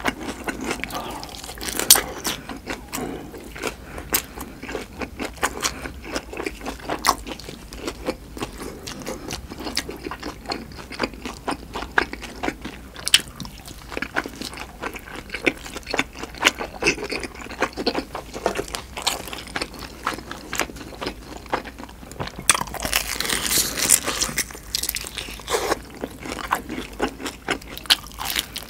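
Close-up biting and chewing of pan-fried dumplings, their crisp browned crust crunching in many short clicks. There is a louder spell of crunching a little before the end.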